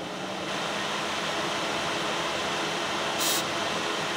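Steady mechanical whir from the Toyota Vios's engine bay, spinning up at the start and then holding even, with a brief hiss about three seconds in.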